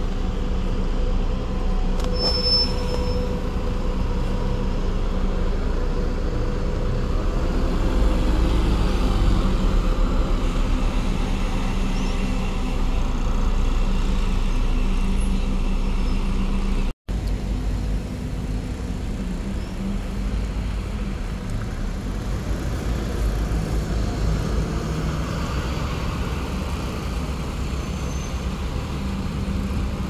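Volvo B7RLE diesel bus engine running as the bus moves off, its low rumble loudest around eight to twelve seconds in. After a brief dropout a little past halfway, a steady wash of bus and road traffic noise.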